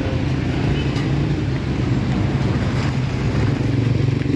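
Steady rumble of motor traffic, with a low, even engine drone underneath.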